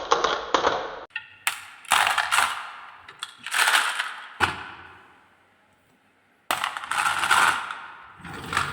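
Glass marbles clattering down a wooden marble run in several bursts of rapid clicks and clacks, with a short lull just past halfway.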